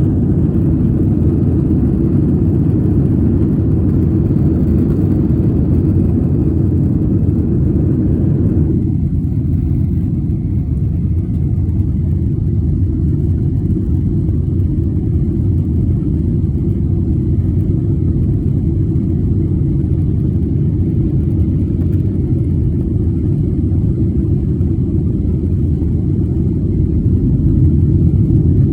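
Jet airliner's steady low rumble. About nine seconds in, the higher part of the sound cuts off suddenly, leaving only the deep rumble.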